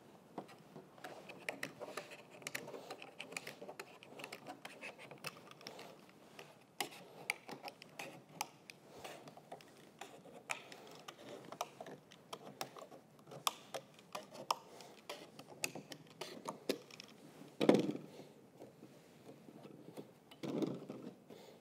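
Metal retaining tabs on the back of a picture frame being pried up and bent back with a knife blade: a run of irregular small clicks and scrapes of steel on metal. Two louder knocks come near the end.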